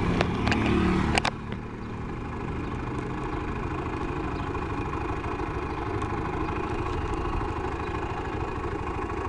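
Low-displacement motorcycle engine running steadily under way, heard from the rider's seat. A few sharp clicks and knocks come in the first second or so, then the engine hum goes on evenly.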